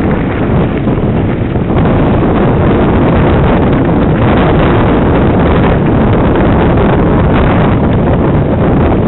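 Wind noise buffeting a helmet-mounted micro camera's microphone on a moving mountain bike, a steady loud rush that gets louder about two seconds in.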